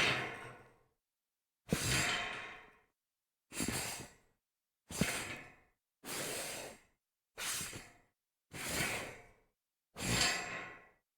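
Shoe soles sliding and skidding on a metal grate, about eight separate slides. Each starts sharply and fades over about a second, with silence between them.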